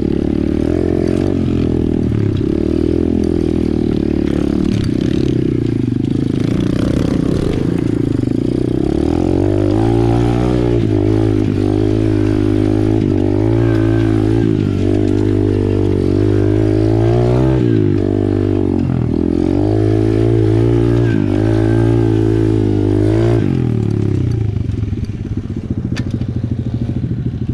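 Apollo RFZ 125cc pit bike's single-cylinder four-stroke engine running under way, its pitch rising and falling again and again with the throttle from about ten seconds in, then dropping to a lower, uneven idle near the end.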